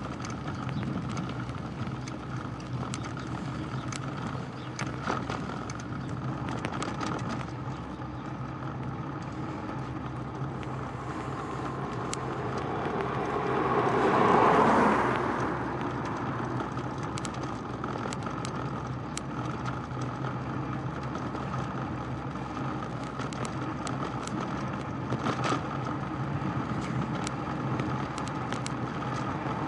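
Steady rolling noise of a bicycle ridden along a road, with faint scattered clicks; about halfway through, an oncoming car passes close by, its noise swelling and then fading over a few seconds.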